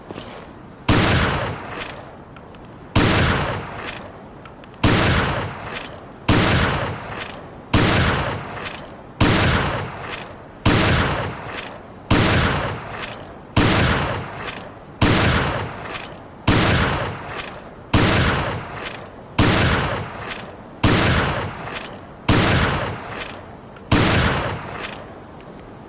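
Mossberg 500 pump-action shotgun fired about sixteen times at a steady pace, roughly one shot every second and a half. Each loud shot dies away and is followed by a few smaller clacks.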